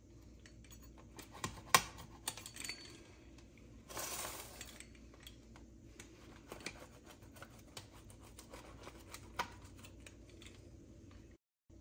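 Pizza cutter wheel rolling through a crisp low-carb tortilla crust, with a short crackle around four seconds in and scattered clicks of the wheel against the plate, one of them louder about two seconds in.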